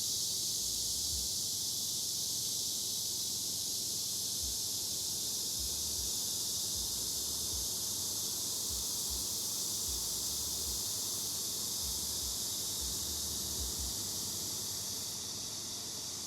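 Steady high-pitched hiss with soft low bumps now and then; the hiss eases off slightly near the end.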